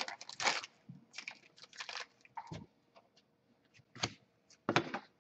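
Trading cards being flipped through by hand, with irregular short clicks and rustles of card stock sliding and snapping against card stock. A couple of sharper snaps come near the end.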